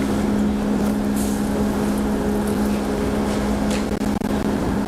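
A steady low hum with a constant background hiss, with a few faint rustles.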